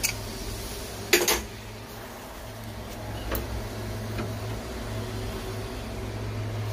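A few short metal knocks as wrenches are fitted onto the brass flare fitting of an air handler's TX valve, the loudest a quick double knock about a second in, over a steady low hum.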